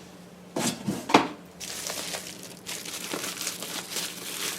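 Packaging crinkling and rustling as a camcorder is unwrapped, with a couple of sharp knocks about half a second and a second in, then steady rustling for the rest.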